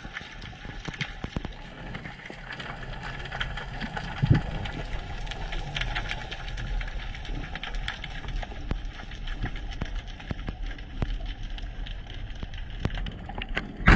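Underwater ambience in a kelp forest: a dense crackle of small clicks over a steady hiss, with one low thump about four seconds in.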